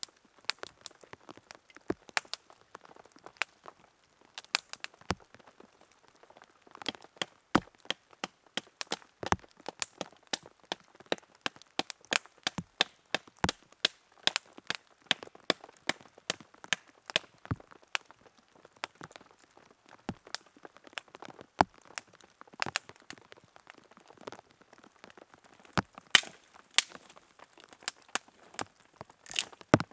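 Rain dripping and pattering onto the tarp shelter and wet forest floor, heard as a scatter of irregular sharp taps, with a small kindling fire crackling among them.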